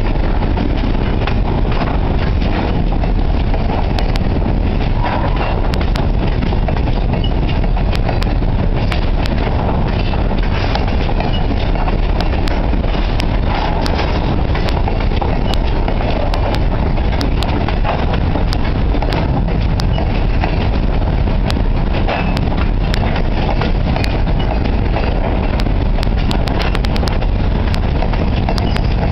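Covered hopper cars of a freight train rolling past at about 10 mph: a steady loud rumble of wheels on rail, with scattered sharp clicks and a quick run of them near the end.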